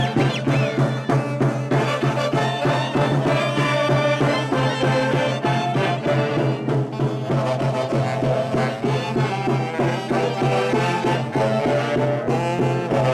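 A saxophone section of a Peruvian Andean orquesta típica playing a festive tune live, several saxophones sounding the melody together over a steady low accompaniment.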